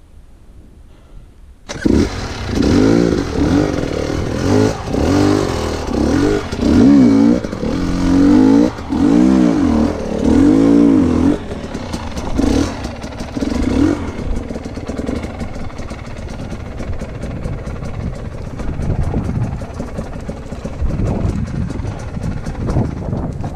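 Dirt bike engine starts suddenly about two seconds in and is revved in a quick series of throttle blips, each rising and falling in pitch. After about eleven seconds it settles into steadier, lower running.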